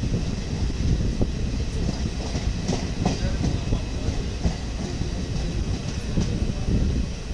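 Express passenger train running, heard from on board: a steady low rumble of the coaches with scattered clicks and knocks of the wheels over the rails.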